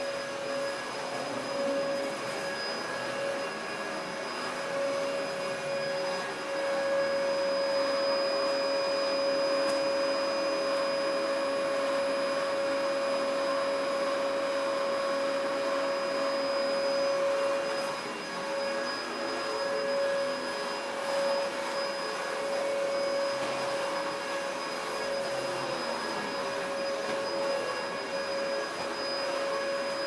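Vacuum cleaner running steadily: a continuous rush of air with a motor whine that holds one pitch, a little louder for a while in the middle.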